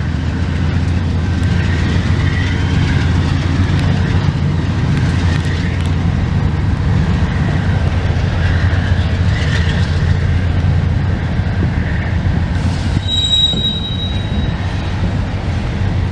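A train rolling past with a steady rumble, its wheels squealing now and then. A higher, brighter wheel squeal comes in about thirteen seconds in.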